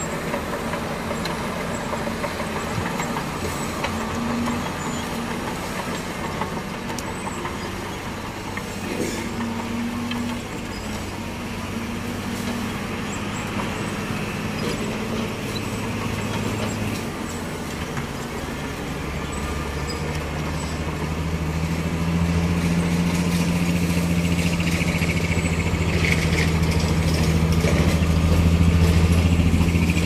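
Shantui SD16L crawler bulldozer's diesel engine running as the dozer works. It turns louder, with a deeper steady note, in the last ten seconds.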